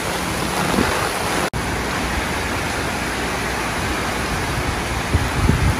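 Steady hiss of heavy hurricane rain falling, broken by a momentary dropout about a second and a half in, with a few low thumps near the end.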